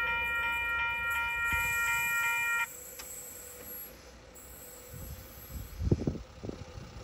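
Passing train's horn sounding one steady multi-tone chord, cut off suddenly about two and a half seconds in, over the low rumble of the train. A few short low thumps come near the end.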